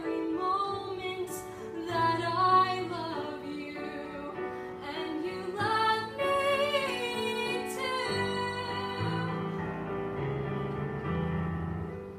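A girl singing a song solo over an instrumental accompaniment track, her melody moving freely at first and settling into longer held notes from about eight seconds in.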